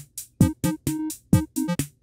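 Teenage Engineering TX-6's built-in synth engines playing a looping programmed beat. A deep kick drum falls in pitch about once a second, with short hi-hat ticks and short plucky synth notes repeating in between.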